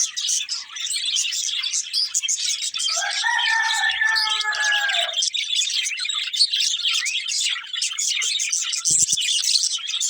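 Budgerigars chirping and chattering rapidly and continuously. A lower, drawn-out call sounds for about two seconds in the first half.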